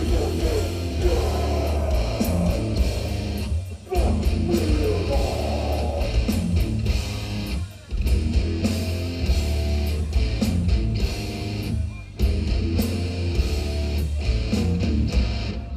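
Old-school death metal band playing live: distorted guitars, bass and drums in a stop-start riff that breaks off briefly about every four seconds.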